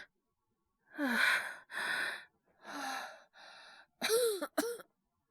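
Heavy, labored breathing from a voice acting as someone feverish with a cold: about six breathy sighs and gasps, the last two louder, with a catch in the voice.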